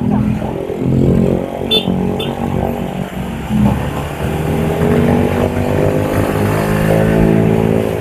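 Motorcycle engine running under way, its pitch drifting up and down with the throttle, with a brief double high blip about two seconds in.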